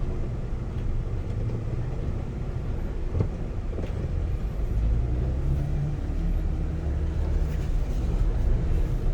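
Dump truck's engine running as the truck drives, a low steady rumble whose pitch rises a little about five seconds in. A single knock about three seconds in.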